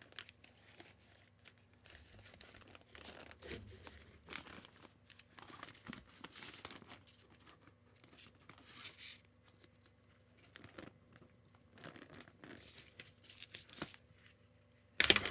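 Nylon softbox fabric rustling and crinkling in bursts as it is handled while its support rods are worked into place, with one loud sharp knock near the end.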